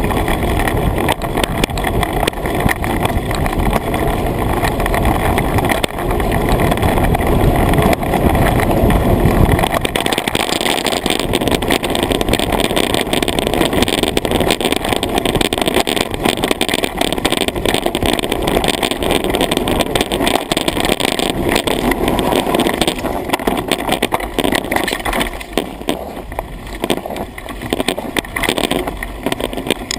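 Mountain bike riding fast down a rough dirt track: wind rushing over the bike-mounted camera, tyres running on the ground and the bike rattling. About ten seconds in the deep rumble drops away, and sharper knocks and clicks come more often near the end.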